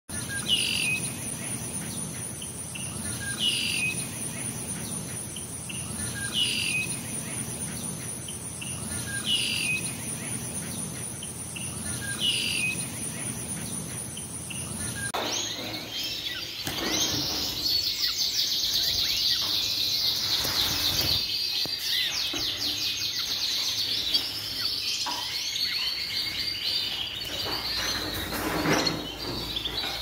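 For the first half, a short falling bird chirp repeats about every three seconds over a steady high buzz. Then, about halfway through, domestic canaries break into song, a dense run of fast rolling trills and twitters.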